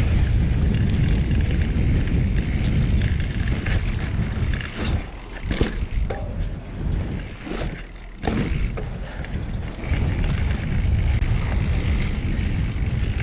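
Mountain bike on Maxxis Assegai tyres being ridden on a trail: a steady rushing noise of wind and rolling tyres, heaviest at the low end. It eases off for a few seconds in the middle, with several sharp knocks and clatters.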